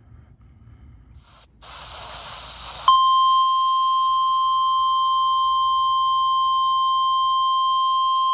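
NOAA Weather Radio warning alarm tone: a loud, steady single-pitch tone near 1 kHz that starts about three seconds in, right after a short hiss of radio static. It signals that a warning broadcast follows.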